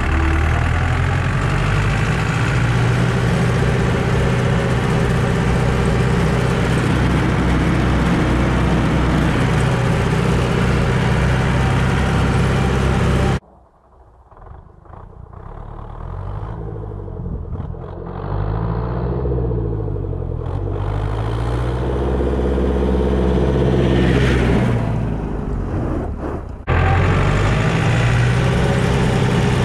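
Massey Ferguson 168 tractor's four-cylinder diesel engine pulling steadily in fourth gear, heard close from the driver's seat. About 13 seconds in it cuts to the same tractor coming along a lane towards the listener, faint at first and growing louder, its pitch wavering as it nears. Near the end the loud, steady sound from the driver's seat returns.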